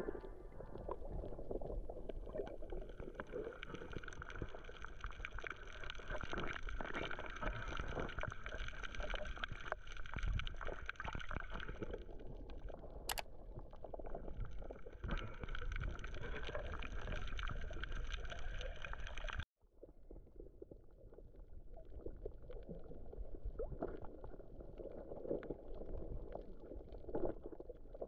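Muffled underwater sound picked up by a camera held below the surface: water movement and bubbling around snorkelers, with a faint steady whine running through it. About two-thirds through it cuts out briefly, then resumes without most of the whine.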